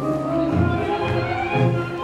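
Tango music playing over the dance floor: held melody notes over a steady bass beat about twice a second.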